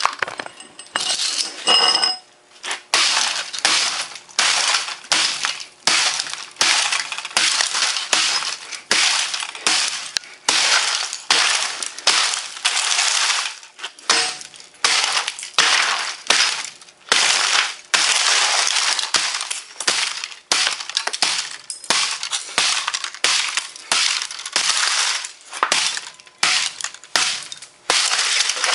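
Repeated blows from a yellow-handled pick onto a broken-open laptop, roughly one or two a second, each strike crunching the plastic casing and circuit board and shattering and clinking its LCD glass.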